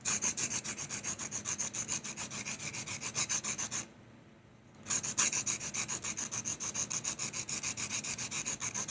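Graphite pencil lead being sanded on a sandpaper sanding block: quick back-and-forth scraping strokes, about six a second, as the pencil is rolled to shape a long sharp point. The strokes stop for about a second near the middle, then carry on.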